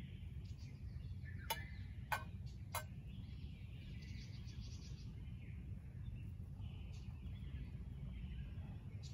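Outdoor ambience with a steady low rumble and faint bird chirping. Three sharp clicks come about one and a half to three seconds in.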